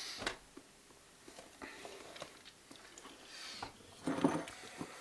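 A person chewing and biting food, with a short burst at the start and a louder one about four seconds in.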